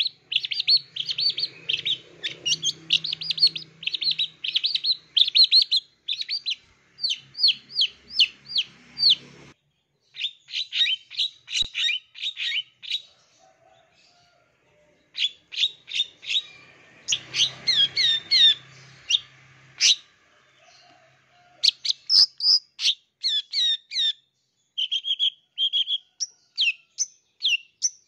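Young long-tailed shrike singing a fast, varied run of sharp chirps and trills. It breaks off briefly about ten seconds in, and again for about two seconds a little later.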